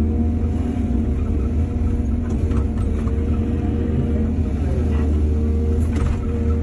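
Excavator's diesel engine running steadily under work, with a brief dip in engine pitch about four and a half seconds in and a few short metallic knocks around the middle and near the end.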